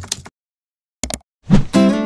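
Intro sound effects: a few keyboard-typing clicks, a pause, two quick clicks, then a thump and a plucked, guitar-like musical note that starts ringing about three quarters of the way in.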